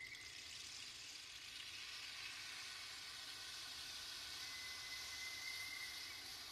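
Soft, steady high-pitched hiss in an ambient meditation soundtrack. A faint steady high whistle tone comes back about four and a half seconds in.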